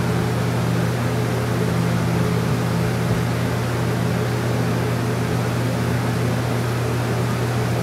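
Steady low hum with an even background hiss, unchanging throughout.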